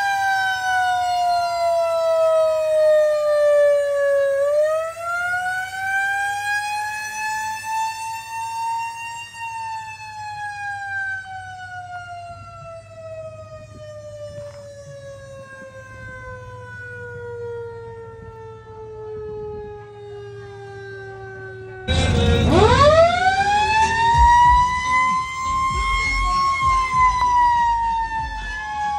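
A siren wailing in slow glides: its pitch falls, rises again, then sinks slowly for a long stretch. Near the end it starts up loudly with a fast upward sweep, peaks and begins to fall.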